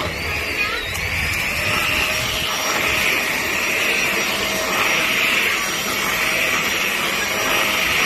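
Handheld corded dust-mite vacuum cleaner running steadily, with a thin high whine over the motor's hiss. The hiss swells and eases every second or two as the vacuum is moved over a bed sheet.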